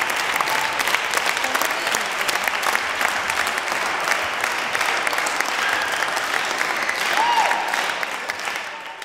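Audience applauding steadily, fading out near the end, with a brief high-pitched call about seven seconds in.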